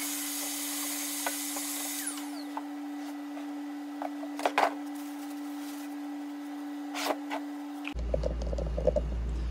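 Shop vacuum running as its hose cleans the old seat's coil springs, switching off about two seconds in with a falling whine. A few sharp knocks follow as the Model A seat's wooden frame is handled, over a steady hum.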